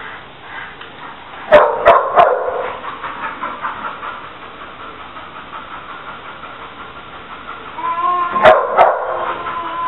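A small dog barking: three sharp barks in quick succession about a second and a half in, then a whine running into another short burst of barks near the end.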